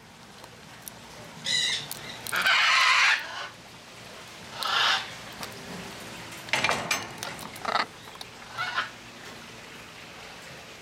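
Macaw squawking: a series of about six harsh calls. The longest and loudest lasts about a second, a couple of seconds in.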